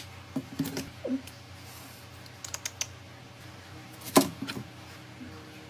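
Scattered sharp clicks and taps of small hard parts being handled during a phone repair, like keys or plastic pieces knocking. There is a quick run of clicks about two and a half seconds in and a single loudest click about four seconds in.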